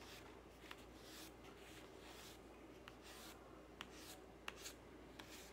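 A short piece of green wax crayon, its paper peeled off, is rubbed on drawing paper in quick upward strokes, about two or three a second. It makes a faint scratchy rasp with a few light ticks.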